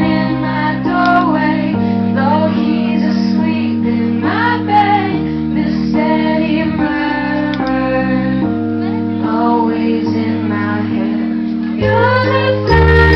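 Live band music: a woman singing lead over sustained chords on a Nord Electro 3 keyboard, with electric guitar, the chords changing every second or two.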